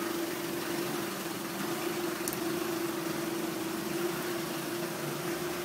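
Vehicle engine running steadily, giving a constant hum.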